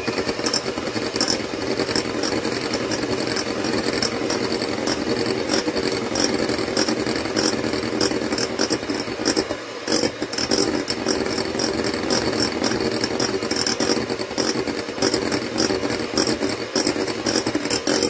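Electric hand mixer running steadily at its lowest speed, its beaters rattling through a bowl of eggs and sugar, with a brief dip about ten seconds in.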